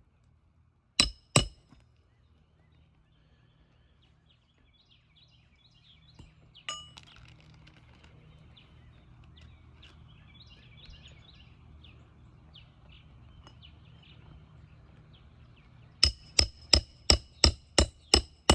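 Hammer driving roofing nails into an asphalt shingle: two strikes about a second in, then a quick run of about eight strikes near the end.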